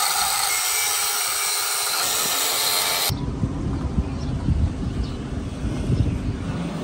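Angle grinder with an abrasive disc grinding steel: a steady high hiss that cuts off abruptly about three seconds in. A low rumbling background with a few knocks follows.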